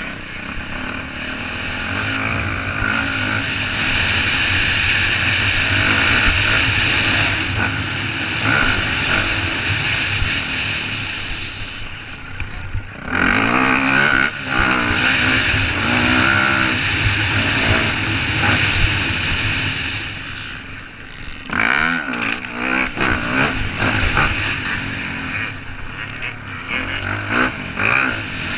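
Dirt bike engine revving hard and shifting up and down under the rider's throttle, chopped off briefly a little under halfway and again about three-quarters through, then a series of quick throttle blips near the end.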